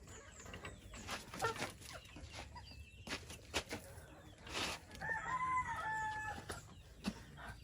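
A rooster crowing once, about five seconds in, one held call lasting a little over a second. Chickens cluck, with scattered short scuffs and clicks around it.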